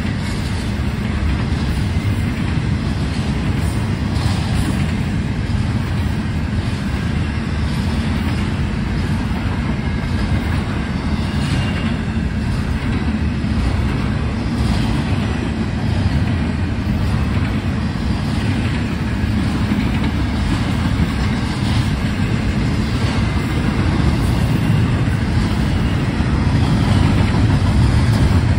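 A train rolling past: a steady, loud rumble of its cars on the rails, with faint clicks from the wheels, growing a little louder near the end.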